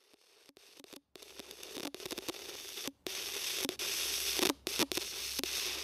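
Crackling, hissing static that swells louder and cuts out suddenly several times for a split second.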